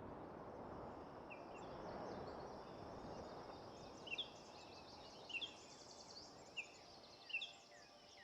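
Birds calling in short chirps, a few louder ones spaced about a second apart in the second half, over a steady rushing background noise.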